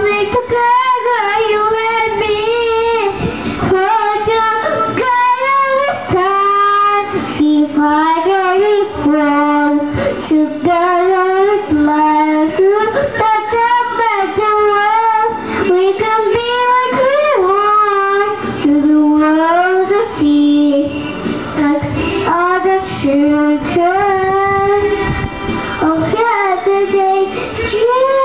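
A four-year-old girl singing into a handheld microphone held right at her mouth, a continuous sung melody with some long held notes.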